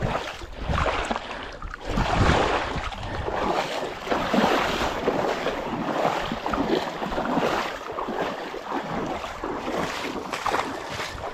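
Wind buffeting the microphone over water washing in the rocky shallows, a rough, fluctuating rush.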